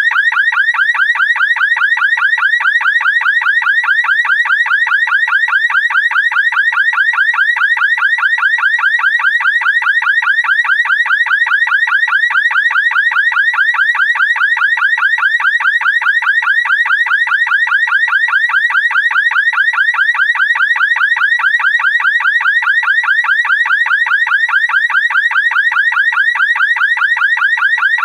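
Car alarm siren sounding one fast warbling tone that repeats without a break or change.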